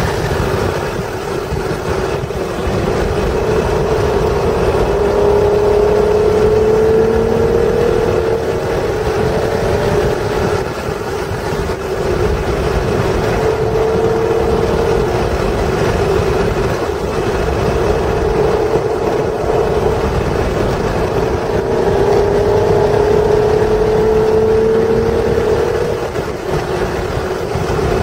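The 1996 Acura NSX's stock 3.0-litre V6 running hard, heard from inside the cabin on track. Its engine note climbs under throttle several times and drops away in between under braking, over steady road and wind noise.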